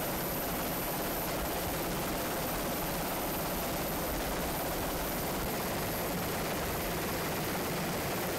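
Steady, unchanging drone and rush of the aircraft filming from overhead, heard from inside it. The missile strike on the ship below makes no audible blast.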